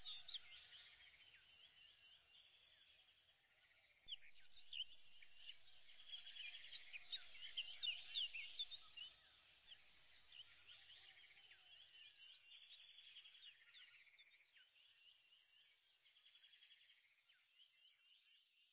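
Faint bird-and-insect ambience: many small birds chirping in short rising and falling calls, with rapid buzzing trills, fading out near the end.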